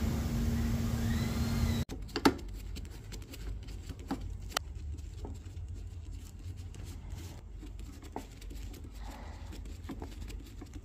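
A steady hum that cuts off abruptly about two seconds in, followed by scattered faint clicks and scrapes of a screwdriver turning the screws of a plastic electrical terminal block as wires are clamped in.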